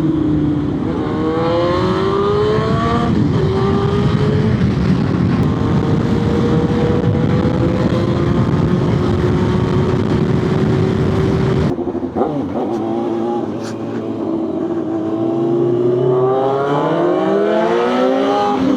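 Motorcycle engine accelerating through the gears, its pitch rising and dropping at each shift, then holding steady at cruising speed, with wind noise over the microphone. About twelve seconds in the engine note drops suddenly, then climbs through the gears again near the end.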